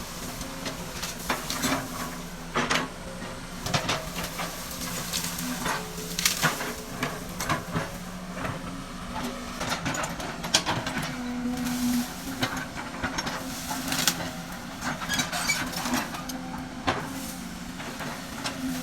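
Excavator at work: a steady engine hum with many irregular clicks and knocks.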